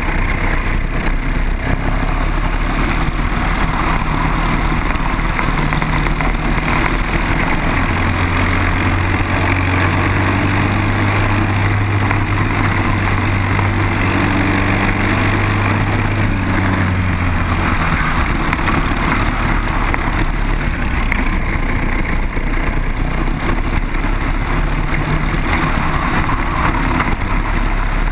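Single-cylinder Briggs & Stratton four-stroke kart engines running at race pace, heard from the kart's onboard camera with a continuous rush over them. A deeper engine drone is strongest in the middle stretch, from about eight seconds in until about eighteen seconds.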